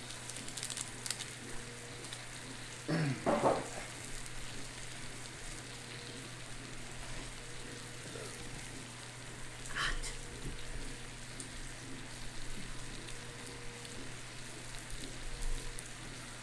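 Steady sizzling from food cooking on an electric hot pot and grill combo, over a constant low hum. A brief louder noise comes about three seconds in, and a short higher sound near ten seconds.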